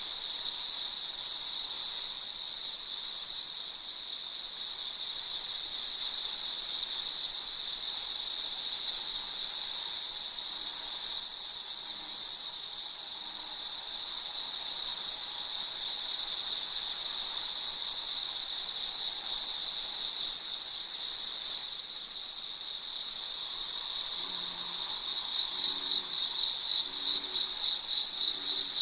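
A chorus of autumn insects chirps steadily in a dense, high-pitched trill. A clearer, higher call stands out from the chorus for a second or two every several seconds.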